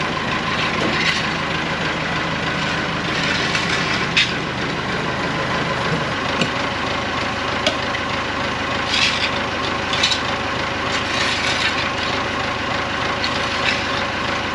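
Tractor engine running steadily while the loader bucket scrapes muck along the shed floor, with scattered scrapes and knocks.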